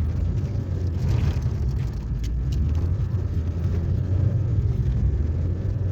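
Car engine and tyres rumbling steadily while the car ploughs through deep snow, scraping its underside on it, heard from inside the cabin. A couple of faint clicks a little over two seconds in.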